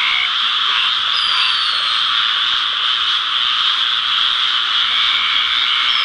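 Dense chorus of frogs calling at night, a steady high-pitched wall of sound. A single steady trill in the chorus stops just after the start and comes back near the end.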